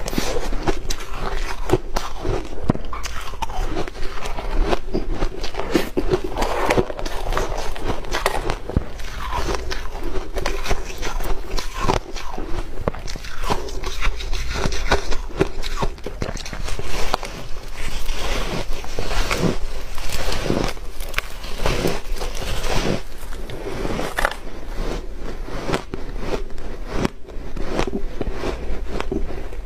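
Refrozen shaved ice being bitten and chewed: a dense, continuous crunching and crackling of crisp ice, with repeated bites.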